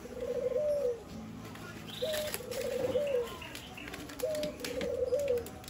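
A dove cooing: a short rising note followed by a longer warbling coo that drops at its end, three times about two seconds apart. Faint clicks of a plastic crate being handled come in between.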